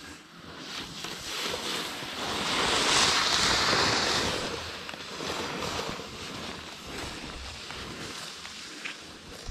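Wind rushing over the microphone mixed with the hiss of edges scraping through chopped-up snow on a fast downhill run, swelling to its loudest about three seconds in and then running on steadily.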